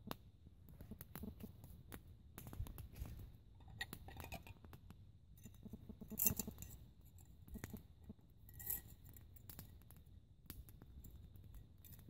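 Small wood fire crackling in a folding metal twig stove, with irregular sharp snaps.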